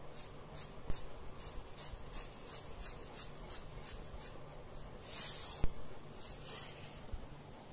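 Fabric strip rubbing and swishing as it is worked along a thin rod to turn a stitched tube right side out, in an even rhythm of about three short strokes a second. About five seconds in comes a longer swish, a sharp click, then one more brief swish.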